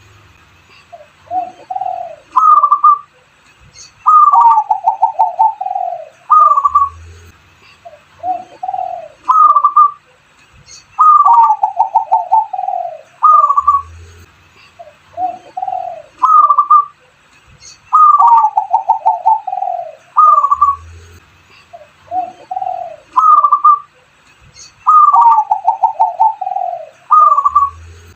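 A dove cooing in full song, repeating the same phrase over and over: a few low coos, a higher note, then a rolling run of falling coos. Faint low thumps come roughly every seven seconds.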